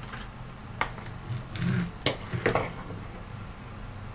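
A handful of light knocks and clatters of plastic kitchenware as a plastic bowl and cutting board are shifted about on a tiled floor, mostly in the middle second or so.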